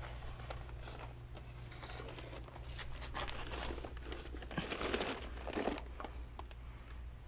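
Rustling, scraping and small knocks of a large work light being handled and repositioned, busiest about halfway through, over a steady low hum.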